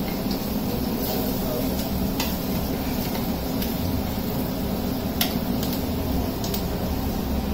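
Food frying in a small pan on a gas burner while a metal spoon stirs it, with a few brief clinks of the spoon against the pan, over a steady low rumble.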